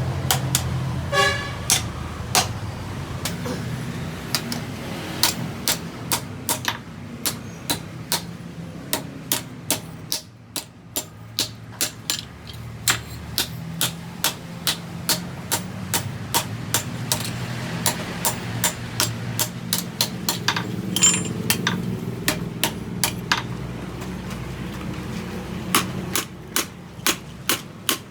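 Hammer blows on steel being forged, struck in uneven runs of about two a second with a short pause partway through, over a steady low hum.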